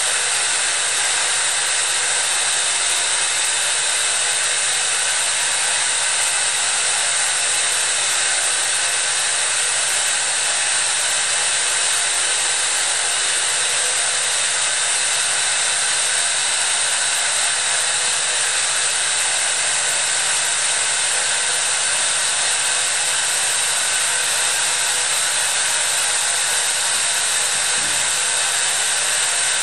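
Steady, loud hiss of steam escaping from ex-Canadian National 0-6-0 steam locomotive #7470 while she is being steamed up.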